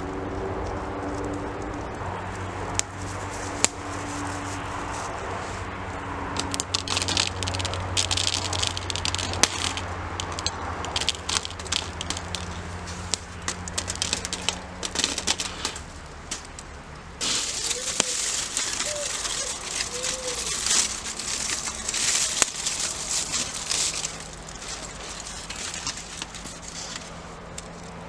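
Campfire crackling with sharp pops scattered through it, becoming denser and hissier about two-thirds of the way through.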